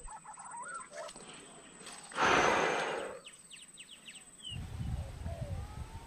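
Green pigeons (punai) giving soft, wavering whistled calls. A loud rushing burst lasts about a second around the middle, followed by a quick run of thin rising chirps. A low rumble on the microphone sets in near the end.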